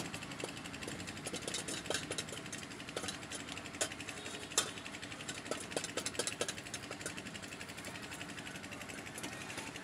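A steady low engine-like hum under irregular clicks and knocks from a wooden idiyappam press and metal pots, with one sharper knock about four and a half seconds in.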